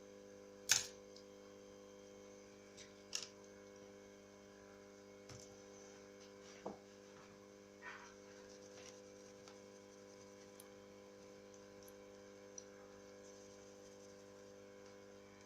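A few sharp little clicks and taps, the loudest about a second in, from handling the phone and small tools during repair work, over a steady low electrical hum.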